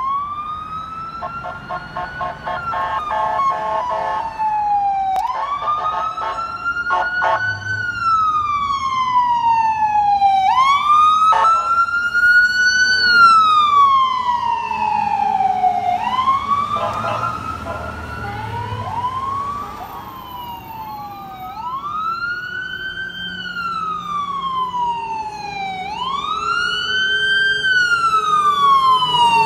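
Ambulance sirens wailing as the ambulances pass. Each sweep rises quickly and then falls slowly over about five seconds, with a burst of rapid short pulses in the first few seconds.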